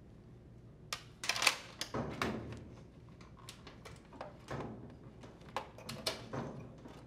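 Small metal chain clinking and rattling as it is hooked onto a washer's plastic control console to hold it tilted back, with light plastic knocks from handling the console. The clinks come in scattered clusters rather than as a steady sound.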